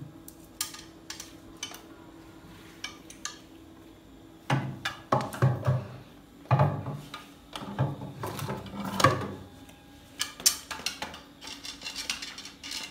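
Scattered knocks and clatter with stretches of scraping as a wooden chest and things around it are moved and handled, busiest in the middle; a faint steady hum underneath.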